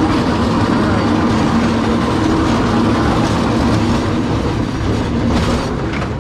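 Large wheeled plastic bin loaded with scrap metal being pushed over a rough concrete floor. Its wheels give a steady rattling rumble, and the metal pieces inside clatter.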